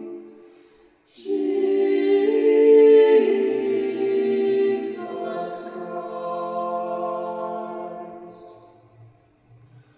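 Small mixed-voice a cappella ensemble of five singers performing a slow carol in held chords. A phrase dies away in the first second, a new phrase starts just after, and it fades out again near the end.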